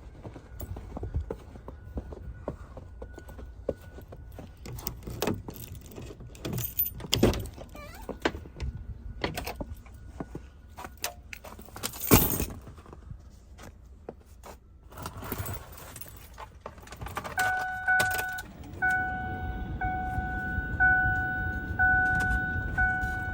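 Keys jangling with clicks and knocks as someone gets into a Ford pickup. About three-quarters of the way in, the truck's key-on warning chime starts, pinging steadily about once a second while the 6.4 diesel's glow plugs warm up before starting.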